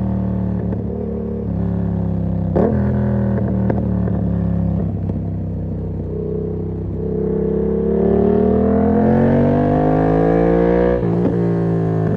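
Yamaha MT-07's parallel-twin engine through an SC-Project exhaust with the dB killer fitted, running at a steady speed, then accelerating with a rising pitch from about seven seconds in. About eleven seconds in, the pitch drops sharply.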